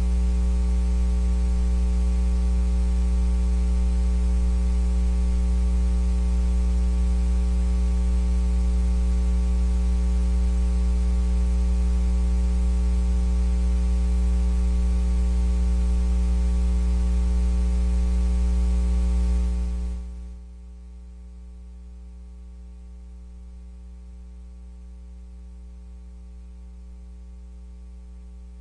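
Loud, steady electrical mains hum with a buzzy edge and hiss. About twenty seconds in it drops abruptly to a much fainter hum and hiss.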